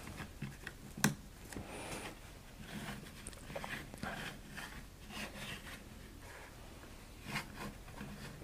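Faint rubbing and small clicks of a plastic action figure being handled and turned on its clear plastic display stand. There is a sharper click about a second in and another near the end.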